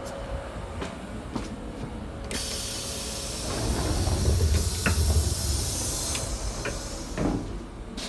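Compressed air hissing from a Class 156 Sprinter diesel train's air-operated passenger doors at a station stop. The hiss starts about two seconds in, lasts about four seconds with a low rumble underneath, then fades, and a short knock follows near the end.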